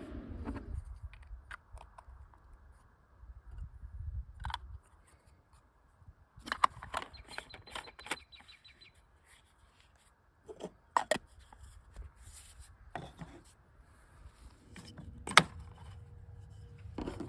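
Scattered clicks, taps and rubbing of a portable espresso maker being handled and put together, with a low hum that stops under a second in.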